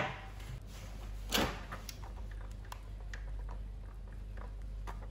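Close handling noise of cloth and tools. There is a knock at the start, a brief louder rustle about a second and a half in, then faint scattered taps and rustles over a low steady hum.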